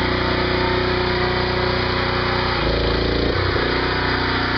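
Small gasoline engine of a pressure washer running steadily under load, its pitch shifting briefly about halfway through.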